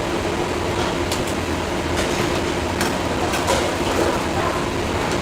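Steady low rumble of machinery or traffic with a constant hum, and a few scattered clicks.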